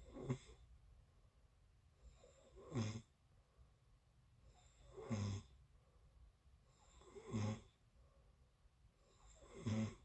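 Snoring: five short snores at an even pace, about two and a half seconds apart.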